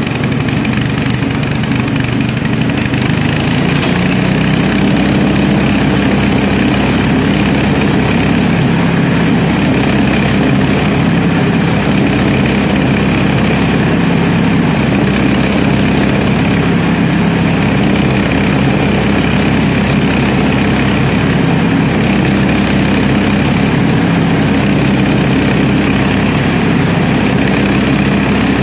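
Small air-cooled petrol engine running steadily, belt-driving a multi-crop legume thresher while crop stalks are fed into its hopper. The engine drones continuously, with no break.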